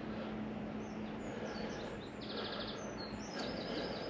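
Small songbirds chirping, with a short rapid trill about two seconds in and more chirps near the end, over a steady hiss of outdoor background noise and a faint low hum.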